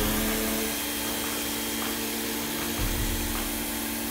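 Greenworks 2000 PSI electric pressure washer running, a steady motor-and-pump hum under the hiss of its water jet spraying a wooden fence.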